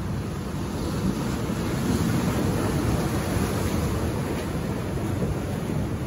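Ocean surf washing over and around shoreline rocks: a continuous rushing wash that swells in the middle and eases near the end.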